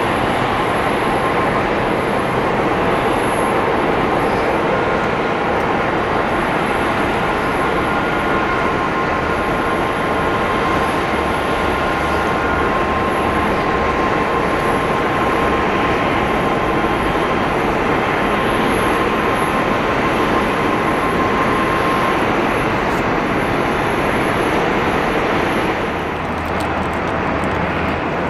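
Jet airliner engines running: a loud, even rush of engine noise with a thin steady whine that stops a little over three-quarters of the way through.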